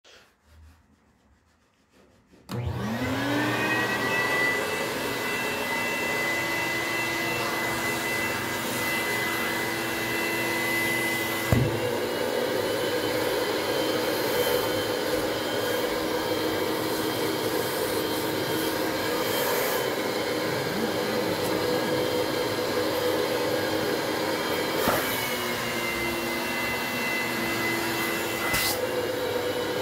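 Vacuum motor of a portable upholstery extraction machine starting about two and a half seconds in with a rising whine, then running steadily as its clear upholstery tool is drawn over sofa fabric. Its whine shifts in pitch now and then, with a sharp knock about a third of the way through.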